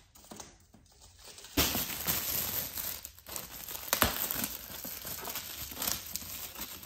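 Glossy gift-wrapping paper being torn and crumpled off a gift box by hand: a dense crinkling with sharp crackles and snaps that starts about a second and a half in.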